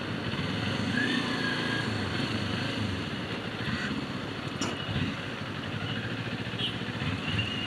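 Sport motorcycle engine running at low speed in slow, stop-and-go city traffic, with street noise around it.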